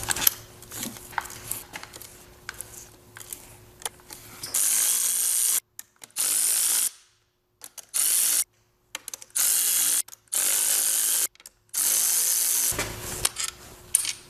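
Cordless ratchet undoing the supercharger-to-block bolts: six separate runs of motor whir and ratcheting of about a second each, which start a little past a third of the way in and come after a few light tool clicks.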